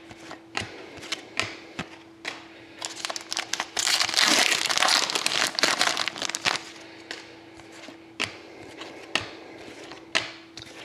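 Hockey trading cards being flicked off a stack one at a time, each card giving a sharp click. About four seconds in there are a few seconds of crinkling from a foil card-pack wrapper being handled.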